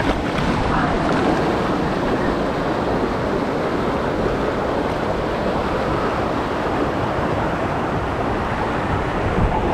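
Water rushing and splashing along a rapids water-ride channel around an inflatable raft, a steady noisy wash with wind buffeting the microphone.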